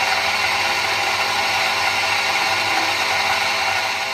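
YORK PS-100 NA electric water pump running loud and noisy with a steady whir: the sign of its worn, rusted motor bearing.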